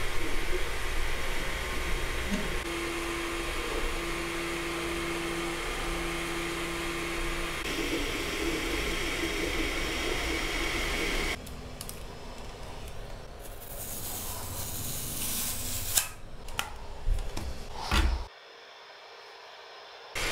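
Sovol SV01 Pro direct-drive 3D printer printing: a steady whir of its cooling fans, with a stepper-motor hum that comes and goes in short, even-pitched stretches. About eleven seconds in this gives way to a quieter sound, with a few sharp knocks near the end.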